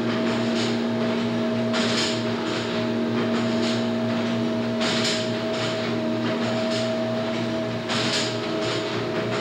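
Plunger-type milk homogenizer running: a steady machine hum with a pulsing low beat from its pistons, and a short hiss about every three seconds.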